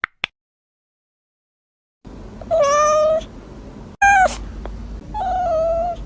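A cat meowing three times in drawn-out calls held at a steady pitch, the middle one short; two brief clicks come just before.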